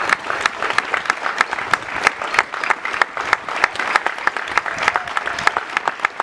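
A small crowd applauding, many people clapping their hands in a steady, irregular stream of claps.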